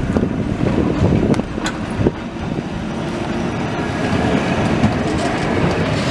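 Vintage tram with a trailer car rolling past close by, its wheels rumbling on the rails with a few sharp clicks in the first two seconds, and a brighter hiss building near the end as the cars go by.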